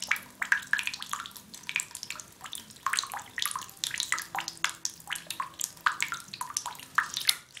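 Bathtub tap dripping into shallow bath water: a quick, irregular patter of small drops plinking.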